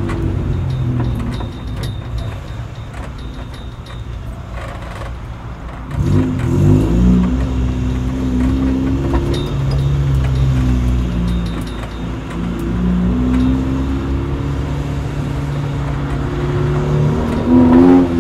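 Honda Civic EK9 Type R's B16B four-cylinder engine and exhaust as the car rolls at low speed. It runs quieter for the first few seconds, picks up revs about six seconds in, then holds a steady low-rev note, with the revs rising again near the end.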